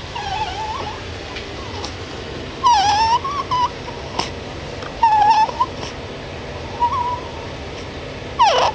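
A four-week-old baby making short, high squeaks and whimpers, about six in all, the loudest about a third of the way in, midway, and near the end.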